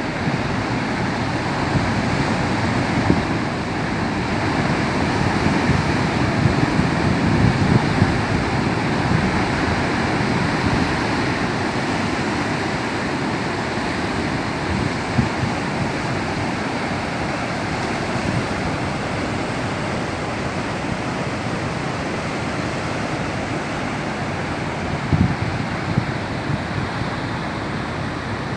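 Rough, choppy sea surging against the coast in a steady wash of surf, the waves swelling somewhat a few seconds in, with a few brief low thumps of wind buffeting the microphone.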